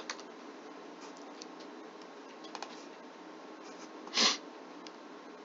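A few faint computer keyboard clicks over steady room hiss picked up by a computer's built-in microphone, then about four seconds in a short, loud sniff or snort through the nose.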